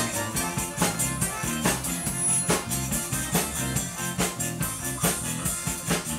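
Live zydeco band playing: accordion, electric guitar and drum kit with a steady beat.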